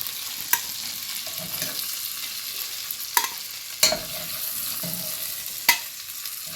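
Chicken pieces sizzling in butter in a frying pan, browned golden, with four sharp clinks of a utensil against the pan as the pieces are lifted out.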